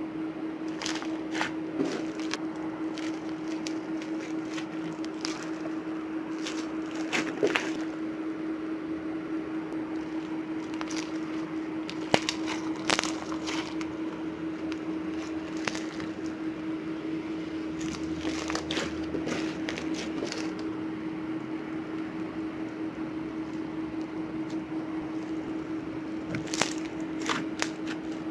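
Pink glue slime packed with polystyrene foam beads being stretched, pulled and squeezed by hand, giving irregular crackles and pops in clusters of a few seconds each. A steady low hum sits underneath.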